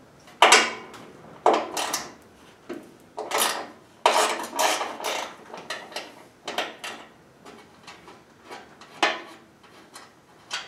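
Hand tools clanking and clicking on metal while bolts are worked loose on the auger housing of a Honda HSS1332 snowblower: a run of irregular sharp knocks, one or two a second, each ringing briefly.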